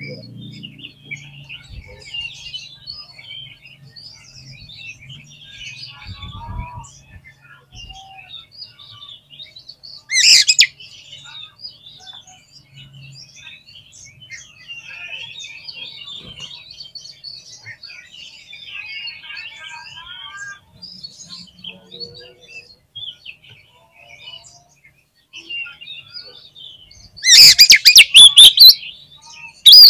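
Oriental magpie-robin (kacer) song: a continuous run of high, varied chirps and whistles. About ten seconds in comes a short, much louder harsh burst, and near the end a longer loud harsh stretch.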